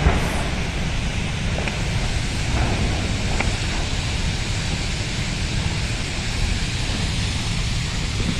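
Steady outdoor rushing noise with wind buffeting the microphone, as a loud low rumble dies away at the very start.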